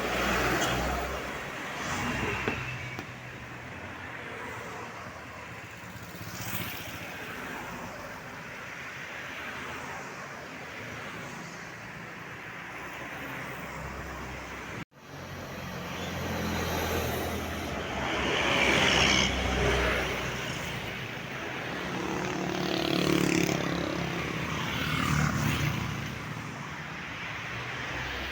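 Tour buses passing on a road, one after another: engine and tyre noise swelling and fading with each pass. The sound cuts out abruptly about halfway through, then the passing resumes, louder.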